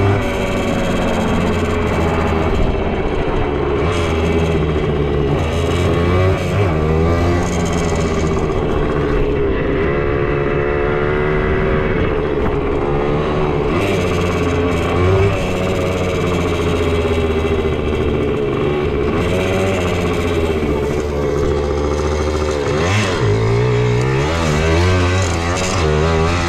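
Suzuki JR80 pit bike's single-cylinder two-stroke engine running under way, its pitch rising and falling over and over as the throttle is opened and closed. In the later part it dips briefly, then climbs again.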